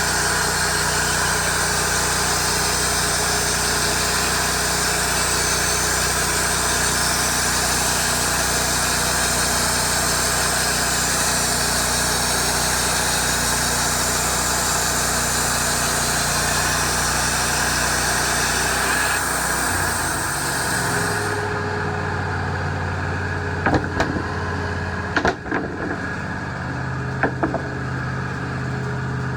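Wood-Mizer LT40 band sawmill running with the band blade cutting through a log, a steady engine drone under a loud hiss of sawing. About twenty seconds in the cut ends: the hiss stops and the engine settles to a lower, steadier note, followed by a few sharp knocks.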